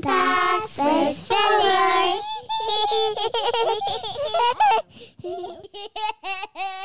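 Recorded segment intro of young children's high-pitched voices speaking, in short choppy bits toward the end.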